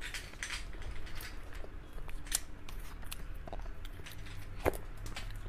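Close-miked eating sounds: soft wet mouth and chewing noises from eating a cream cake, with a spoon clicking and scraping on the plate. One sharper click comes near the end.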